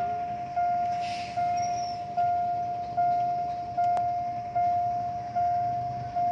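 Railway level-crossing warning bell ringing, a single-pitched ding repeated evenly a little more than once a second, each strike fading before the next: the crossing is closed for an approaching train.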